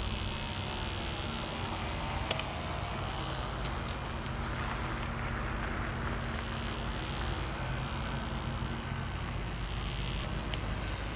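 Tiny Telco CO2 engine of a free-flight model airplane buzzing steadily in flight overhead.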